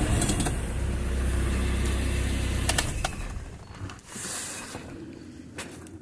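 Holden Rodeo's 2.6 four-cylinder engine idling with the heater blower running, and a few clicks from the dashboard heater controls. The rumble drops away about three seconds in.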